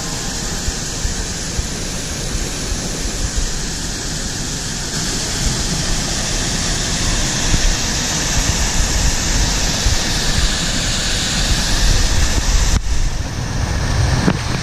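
Water rushing over small rock cascades into a pool: a loud, steady sound of falling and churning water, with wind buffeting the microphone in a low rumble.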